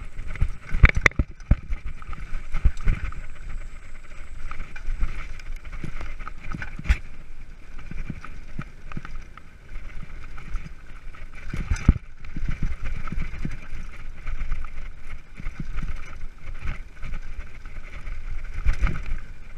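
Mountain bike rattling and rumbling over a rough dirt trail, picked up through a handlebar-mounted camera, with many knocks from bumps, the sharpest about a second in and again midway and near the end.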